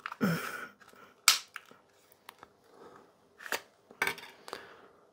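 Sharp plastic clicks and snaps as the snug snap-fit battery cover is pried off a HAK5 WiFi Pineapple Pager's plastic case: a handful of separate clicks, the loudest about a second in and about three and a half seconds in.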